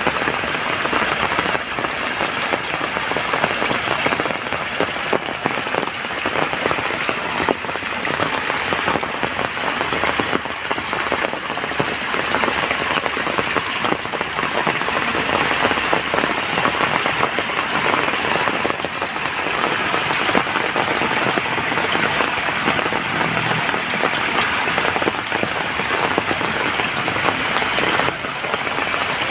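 Steady heavy rain falling on surfaces, a dense, continuous patter of drops.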